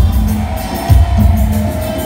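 Amplified live band music played loud, with heavy bass notes landing about every second and a quarter.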